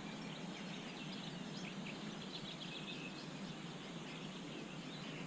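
Steady outdoor background wash with a few faint, scattered bird chirps and calls.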